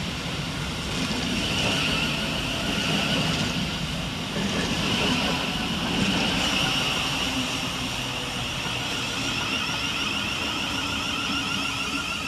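Thameslink Class 700 (Siemens Desiro City) electric trains moving through the station, one departing and one arriving: a steady rumble of wheels on rail with a high whine above it.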